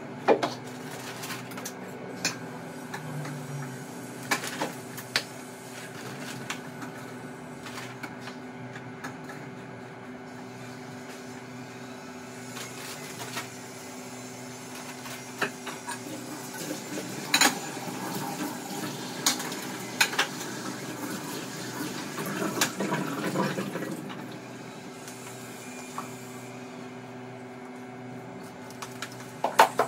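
Scattered knocks and clicks of things being handled in a kitchen, over a steady low hum, with several seconds of denser noise about two-thirds of the way through.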